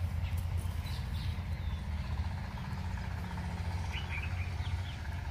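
A few short bird chirps, about a second in and again near four seconds, over a steady low rumble.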